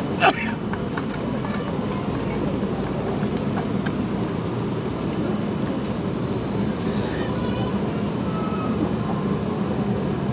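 Steady background din, with one sharp click just after the start.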